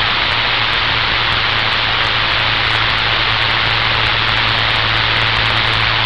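Steady hiss of static from a CB radio receiver on an open channel, with a low steady hum underneath.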